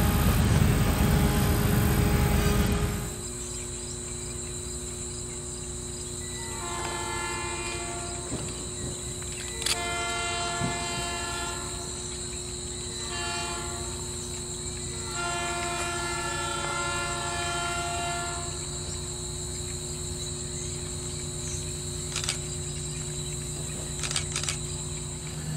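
A diesel switcher locomotive, approaching with its engine running, sounds its multi-note horn in the grade-crossing pattern: long, long, short, long. That is the signal for a crossing ahead. Before it, a steady rush of noise cuts off about three seconds in.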